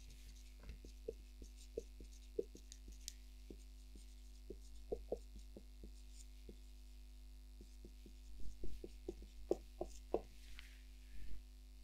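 Light, irregular taps and knocks over a steady electrical hum, the taps coming thicker about two-thirds of the way through.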